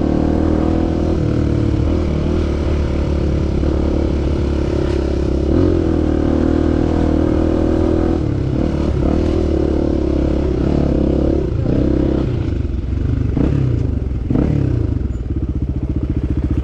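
Off-road enduro motorcycle engine running at a steady pitch, then rising and falling several times as the throttle is worked, with a few knocks in the second half.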